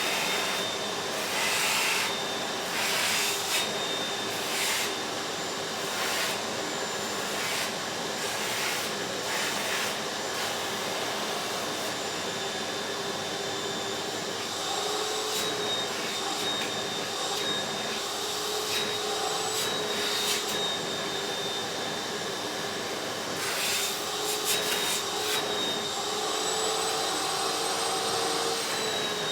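Vacuum cleaner running steadily with a high motor whine, with bursts of crackling as it picks things up, twice near the start and again near the end.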